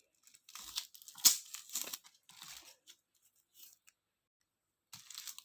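A package wrapping being torn open and crinkled by hand, in several rustling bursts with a sharp snap a little over a second in. After a pause of about two seconds, the rustling starts again near the end.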